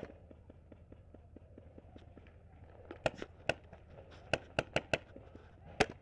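Paintball markers firing. Faint rapid popping fills the first half; from about three seconds in come louder single shots a few tenths of a second apart, which run into a fast string near the end.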